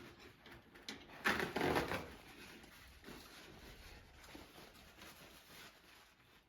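Someone eating fried leek bolani: a short noisy burst about a second in, then faint small clicks and rustles.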